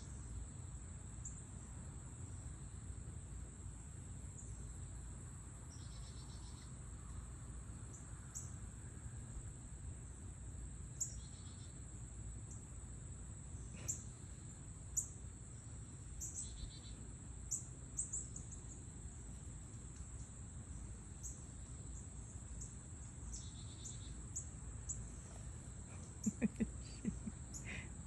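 Steady, high-pitched drone of summer insects such as crickets, with short bird chirps here and there, over a low steady rumble.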